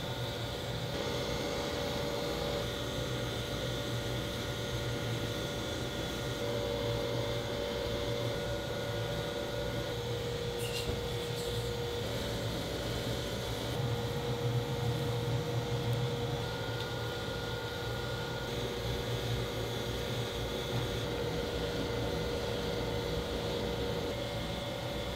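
Steady hum of a leather-working machine's electric motor running while leather strips are fed through it, with a single faint click about ten seconds in.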